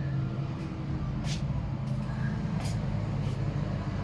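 A vehicle's engine running at a steady idle, a low even hum, with a few short rustling noises on top.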